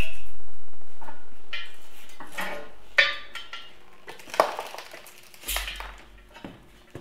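Metal clanks and clinks as a bare Farmall Super M cast-iron engine block is rolled over by hand on an engine stand. A loud metallic sound at the start fades away over the first few seconds, followed by several separate clanks.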